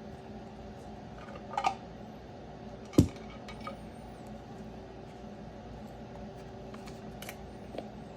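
A few clicks and taps of hard plastic top loader card holders being handled and taken from their box. One sharp click about three seconds in is the loudest, over a steady low hum.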